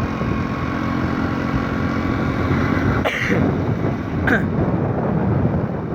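Engine and road noise of a moving vehicle, steady throughout, with two short sharp sounds about three and four seconds in.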